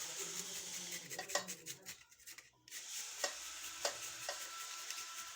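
Garlic being grated in quick repeated scraping strokes, followed after a brief break by a soft steady hiss with a few light clicks.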